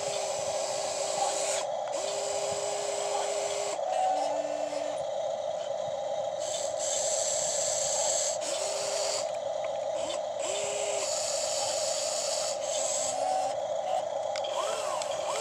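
Small electric motors of an inexpensive RC model excavator whining in short spurts, starting and stopping every second or two as the boom, arm and cab are worked, over a steady hum.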